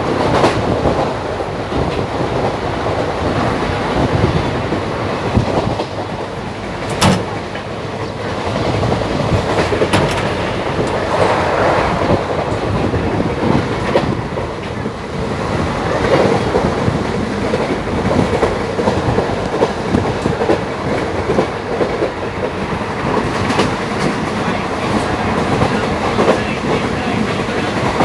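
Passenger train running, heard from inside a coach: a steady rumble with wheels clacking over the rail joints and a few sharp knocks.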